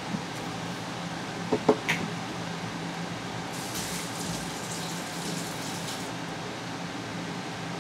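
Steady fan hum, with a few short sharp clicks about a second and a half in and a stretch of higher hiss in the middle.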